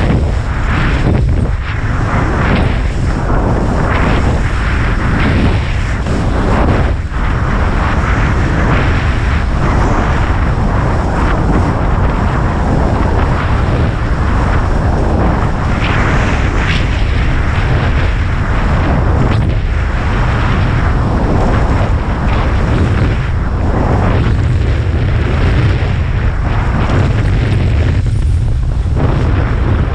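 Strong wind buffeting the microphone in a constant low rumble, with the rushing hiss of water and spray swelling and fading every second or two as the board runs over the waves.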